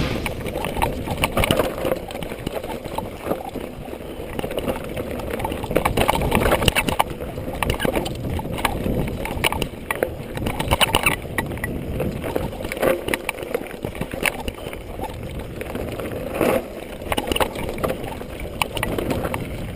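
Mountain bike clattering and rattling down a rocky dirt trail, tyres crunching over loose stones, with irregular knocks and a few louder jolts.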